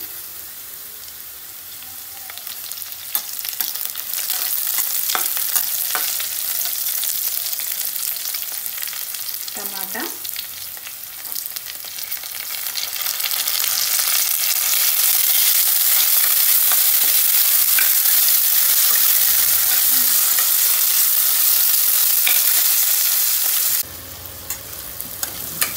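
Onions, green chillies and curry leaves sizzling in hot oil in a kadai, stirred with a spatula that clicks and scrapes against the pan. The sizzling grows louder partway through, as chopped tomato goes into the oil, then drops suddenly near the end.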